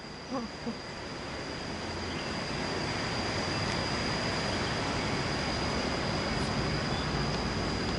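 Steady outdoor background noise: an even hiss that swells slowly, with a thin, constant high-pitched whine running through it.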